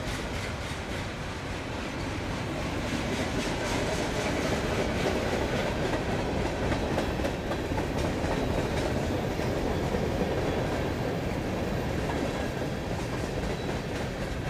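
Freight train cars (open-top cars, then boxcars) rolling past: a steady rumble and clatter of steel wheels on the rails, growing a little louder through the middle.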